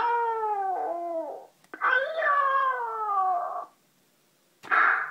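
Talking Tom interactive toy cat giving its electronic sound effects through its small speaker: two long wails that fall in pitch, set off by stroking its belly, then a short noisy burst near the end as a hand goes to its face.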